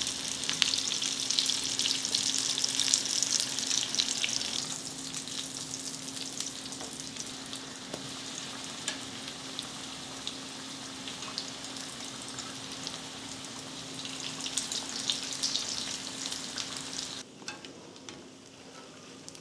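Corn tortilla potato tacos deep-frying in hot vegetable oil in a skillet: a steady sizzle with crackling pops, louder at the start and again about three-quarters through, then dropping off sharply near the end.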